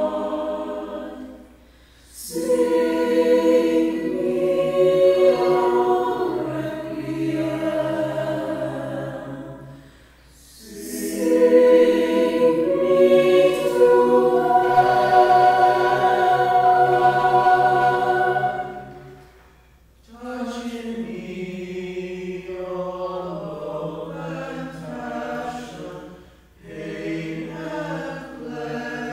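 Choir of teenage voices singing unaccompanied in long held phrases that break off briefly four times. After the third break the phrase moves down to lower, male voices.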